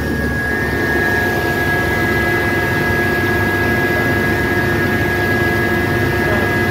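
Jackson 6700 track tamper's engine running steadily, with a constant high-pitched whine over the rumble.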